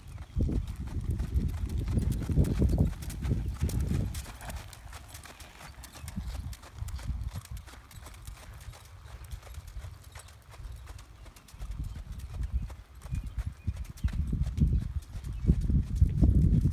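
Hoofbeats of a ridden horse cantering around a sand-and-dirt arena. They are loudest at the start and again near the end as the horse passes close by, and fainter in between as it goes around the far side.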